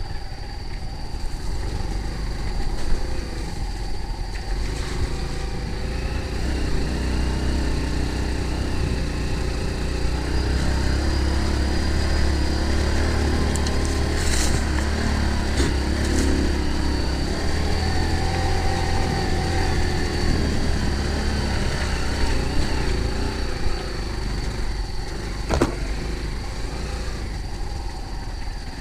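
A motor vehicle's engine running with a low rumble that grows louder about ten seconds in and eases off again after about twenty seconds. A steady high-pitched tone runs above it, and there are a few brief clicks.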